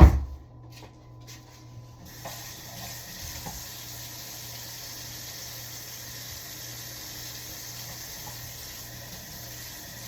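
A short thump at the very start, then a water tap turned on about two seconds in and running steadily.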